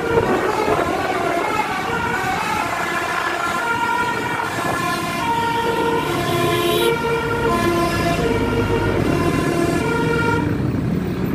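A vehicle horn or siren sounding a run of held notes that step up and down in pitch, over the steady noise of vehicles.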